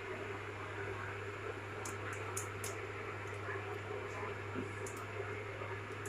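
Microwave oven running with a steady hum while it heats food, with a few faint ticks about two to three seconds in.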